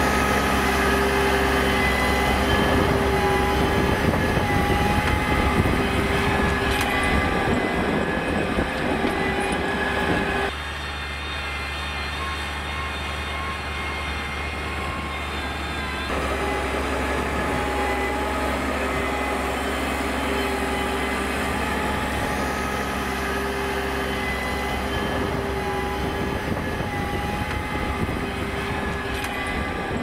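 Case IH Maxxum 140 tractor's six-cylinder diesel engine running steadily under load while pulling a drag harrow. The engine drone drops and thins about ten seconds in, then comes back fuller around sixteen seconds.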